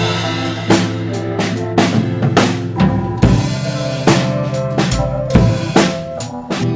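Background music: a drum kit beat with kick and snare hits over sustained chords.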